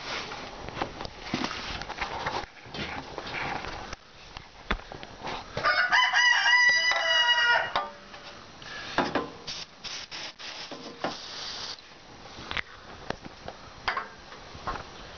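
A rooster crows once, about six seconds in, a loud call lasting about two seconds. Around it are scattered clicks and rubbing noises.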